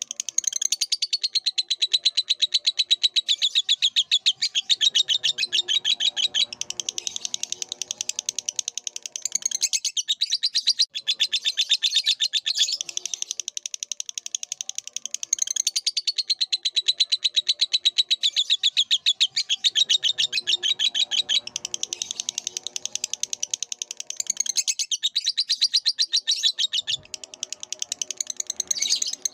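Lovebird singing a long, unbroken run of fast, high chirps, with short spells of lower chatter in between.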